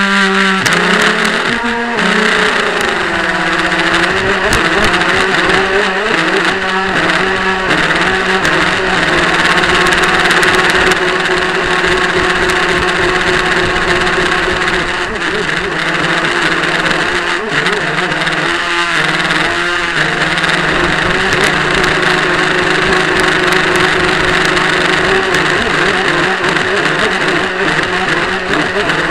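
RC powerboat's motor running at speed, picked up close by a camera riding on the hull, with the rush of water past the hull under it. The motor's steady pitch sags and recovers a few seconds in and wavers briefly again in the middle.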